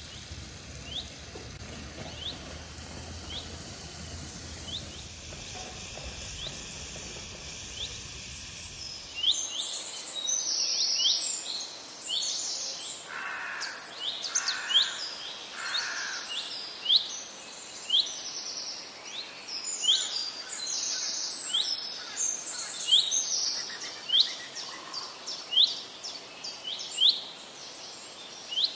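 Birds chirping: a short repeated chirp about once a second, joined about a third of the way in by a busier mix of calls that give the loudest peaks. A low steady rumble lies underneath at first and stops when the busier calls begin.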